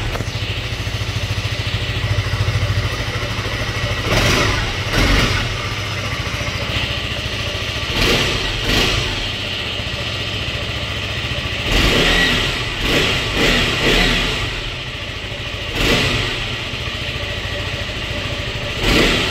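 KTM RC 200 BS6's single-cylinder engine idling through its underbelly exhaust, blipped repeatedly with short rises and falls in revs.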